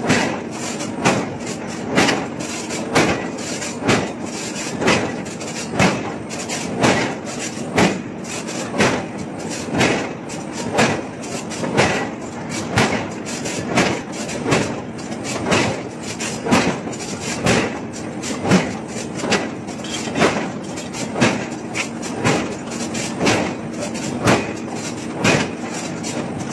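Heavy open-die forging hammer striking a red-hot steel cylinder in a steady rhythm, about one heavy blow a second, each with a short metallic ring. A steady machine hum runs underneath.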